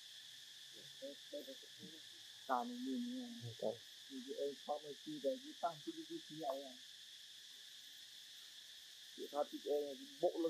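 Steady high-pitched insect drone, with short low-pitched vocal sounds coming and going in two bouts, one from about two to seven seconds in and another near the end.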